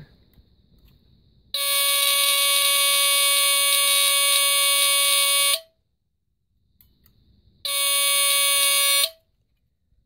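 Honeywell CD200A smoke detector's Kobishi CLB-27 brass squealer horn, with the cover off, sounds a steady, raspy alarm tone on its test button. It sounds for about four seconds, stops, then sounds again for about a second and a half.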